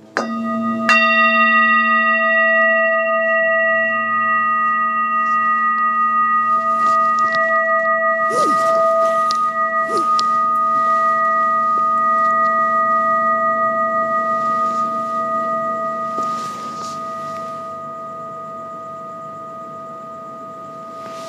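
Large metal singing bowl struck near the start, then again about a second in. It rings on as a steady chord of several tones, one of them wavering slowly, and fades gradually in the last few seconds.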